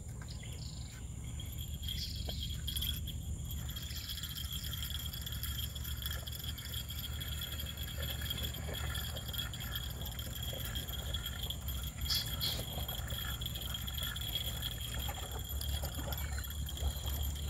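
Outdoor ambience: a steady low rumble under a constant high-pitched buzz, with a few faint clicks near the start.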